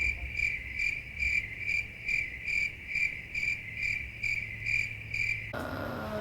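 Cricket chirping, a steady run of chirps about two and a half times a second, the stock 'awkward silence' sound effect; it cuts off suddenly about five and a half seconds in.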